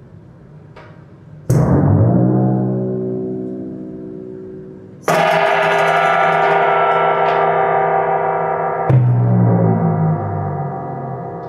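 Struck metal percussion: three strokes, each ringing on in many layered tones and fading slowly. The second stroke, about five seconds in, is the brightest and holds the longest, and the third comes about nine seconds in with a deeper ring.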